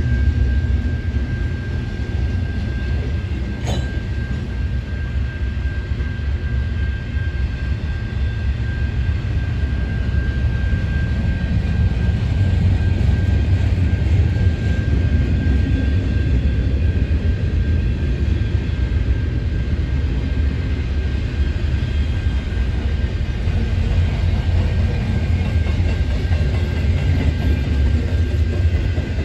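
Canadian National double-stack container train cars rolling past on the rails: a steady, loud low rumble with a thin steady high tone over it, and a single click about four seconds in.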